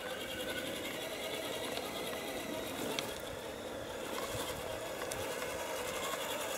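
Electric motor and gearbox of an RC scale crawler truck whining as it crawls down a steep slope, the pitch drifting slowly up and down with the throttle. A single sharp click about three seconds in.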